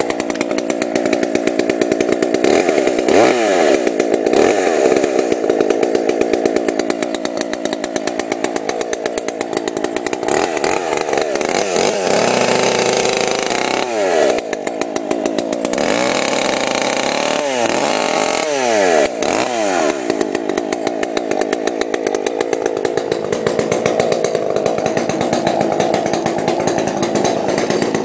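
Gas chainsaw engine running loudly, idling and revved up and down several times, its pitch sweeping up and falling back in quick bursts.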